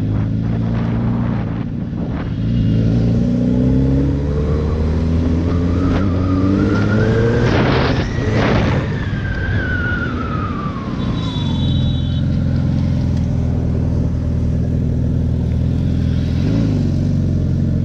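Suzuki Hayabusa's inline-four engine with its stock exhaust running under way, a smooth, quiet note that climbs in pitch through the first half as the bike accelerates. A brief rushing noise comes about eight seconds in, and the revs ease off a couple of seconds later.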